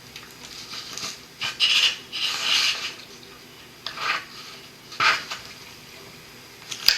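Canoe paddling: several bursts of rubbing and scraping from the paddle against the wooden canoe, with a sharp knock near the end.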